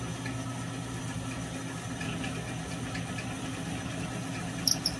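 Small milling machine running steadily while an end mill takes light cuts in a metal crankcase half, the table fed by hand. A few sharp high-pitched ticks come near the end.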